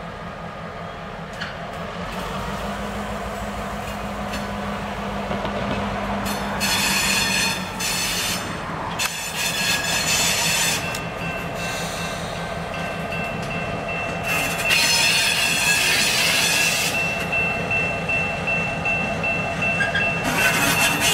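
Diesel freight locomotive running as it pulls a train of freight cars slowly past, its engine growing louder as it nears. From about halfway through, a steady high-pitched wheel squeal rides over the engine.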